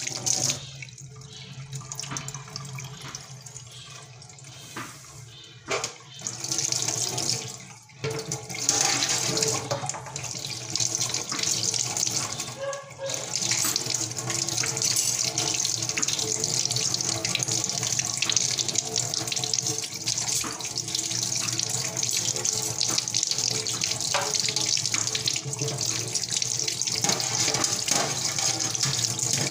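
Kitchen tap water running into a stainless steel sink basin and splashing over a hand and a drain-cleaning tool, draining down the just-unclogged drain. Uneven and broken at first, then a steady full flow from about eight seconds in.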